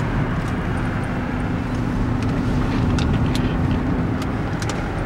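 Road and engine noise inside a moving car's cabin: a steady rumble of tyres on asphalt and engine. A low steady hum runs through it and stops a little past four seconds in, and a few faint clicks sound in the second half.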